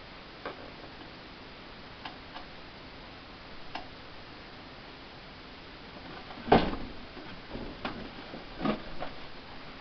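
Scattered clicks and knocks of iMac G3 parts being handled and moved during disassembly, a few light ones at first, then a louder knock about six and a half seconds in and several more after it.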